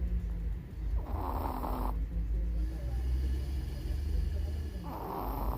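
Elderly Chihuahua snoring in deep sleep: two noisy snoring breaths, about a second in and again near the end, over a low steady rumble.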